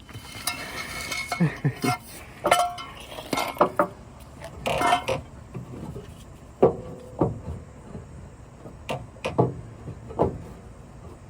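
Scattered metal clinks and clanks of hand tools against a mower deck and blade while a mower blade is being loosened, a few of the knocks ringing briefly.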